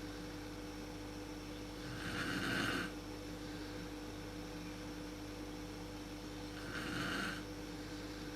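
A woman snoring in her sleep: two snores, each about a second long, about two seconds in and again near the end, over a steady hum.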